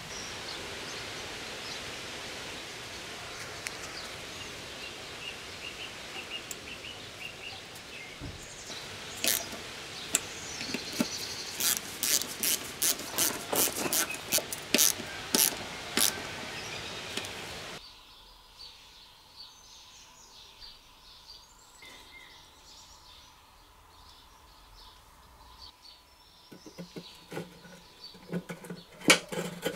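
Outdoor background noise with birds chirping, then from about nine seconds a run of sharp metallic clicks, about two a second, from hand-tool work on a Briggs & Stratton engine's crankshaft and flywheel. At about eighteen seconds it drops to a quieter indoor background, and near the end there are small clicks and scraping of tools on a rusty recoil starter housing.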